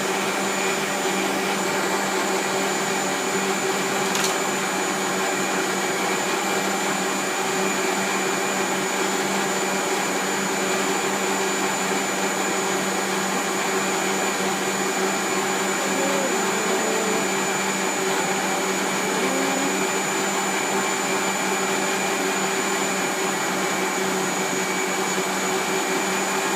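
Electric kitchen blender running steadily, grinding soaked rice and kencur (aromatic ginger) for beras kencur jamu, an even motor hum that does not change speed.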